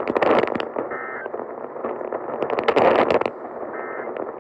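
Radio static from off-air reception: a steady hiss with crackling clicks and two louder noisy surges. A short faint tone blips about a second in and again near the end.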